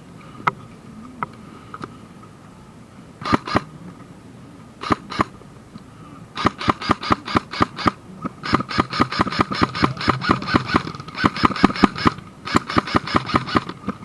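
Airsoft gun firing: a few single shots, then pairs, then long rapid strings of shots at about six a second in several runs with short gaps.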